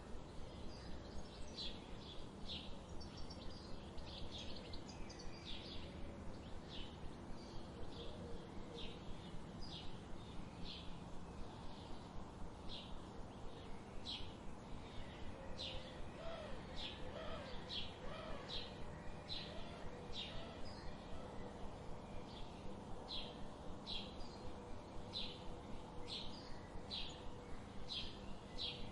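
Birds chirping: a steady series of short, high chirps about once a second, with a few lower rising-and-falling calls around the middle, over a soft continuous background hiss.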